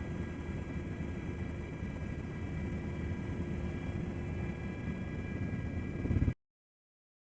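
Helicopter flying: a steady rumble of rotor and turbine engine with a few thin, steady whine tones above it. It cuts off abruptly about six seconds in, leaving a second of silence.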